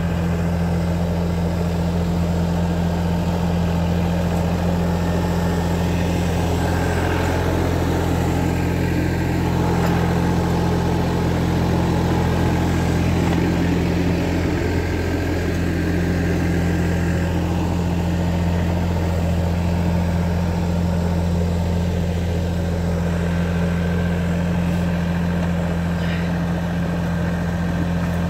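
Solis 26 compact tractor's diesel engine running at a steady speed while the tractor works a front snow plough.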